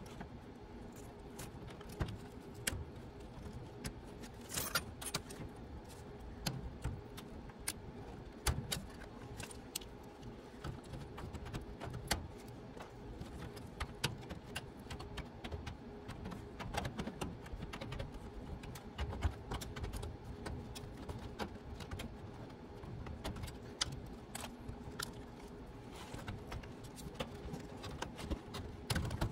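Irregular light clicks and clinks of small hard objects being handled, over a faint steady hum.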